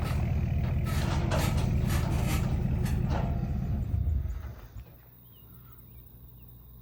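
A large vehicle's engine running close by, with knocks and rattles, that stops suddenly about four seconds in. Faint bird chirps follow in the quiet.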